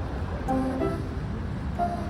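Background music: short melodic notes over a low steady bed.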